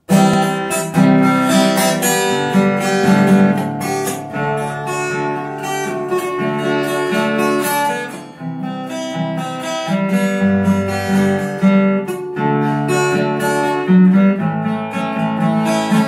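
Giannini acoustic guitar strummed in a steady rhythm of chords: the solo instrumental intro to a voice-and-guitar song.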